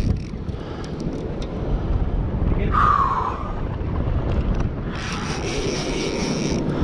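Wind on the microphone over the steady low rumble of a boat engine while a fish is reeled in. A few short clicks come in the first second or so, a brief higher whine about three seconds in, and a hiss from about five seconds on.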